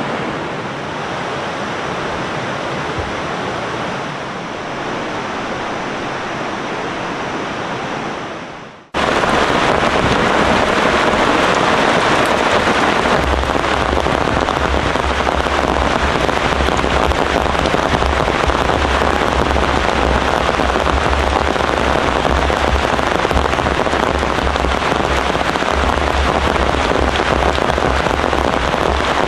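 River water flowing with a steady rush. About nine seconds in it drops out abruptly and gives way to louder, dense heavy rain pattering, with a deep rumble under it.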